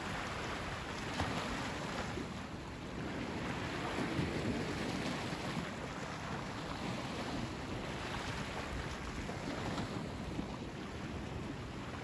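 Sea waves washing onto the beach: a steady rushing surf that swells and eases every few seconds, with a low rumble underneath.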